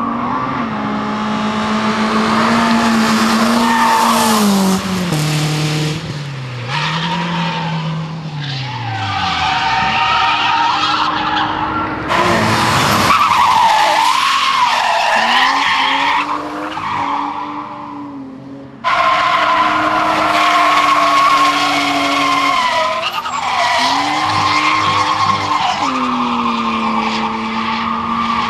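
BMW E36 coupe drift car sliding through corners: the engine revs rise and fall while the rear tyres squeal and skid. The sound changes abruptly twice as one pass gives way to another.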